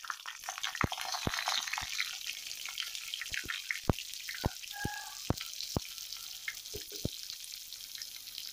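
Stuffed brinjals frying in hot oil in an iron kadai: a steady sizzle with scattered sharp pops and crackles.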